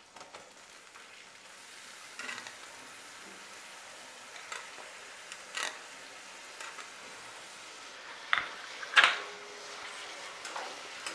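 Chopped onion dropping into hot oil in an iron kadhai and frying with a faint steady sizzle, while a metal spatula scrapes and knocks against the plate and the pan in a few sharp clicks, the loudest two close together near the end as the onions are stirred.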